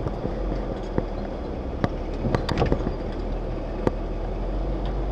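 Jeep CJ-8 Scrambler driving slowly on a dirt track: a steady low engine rumble, with scattered sharp clicks and knocks.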